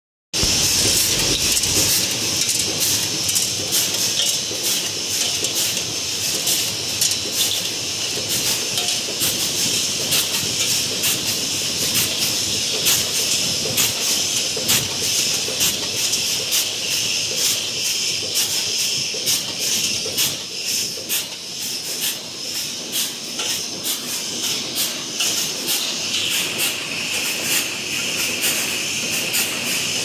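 A cold heading machine (bolt former) running in production: a steady stream of sharp clattering strokes over a continuous hiss.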